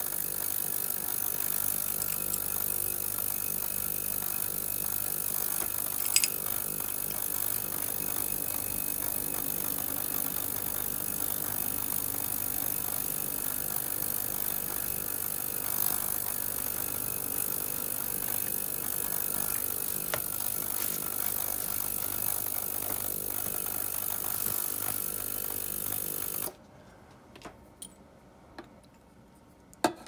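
Small power tool running steadily at a constant pitch, then cutting off suddenly about 26 seconds in; a few light clicks follow.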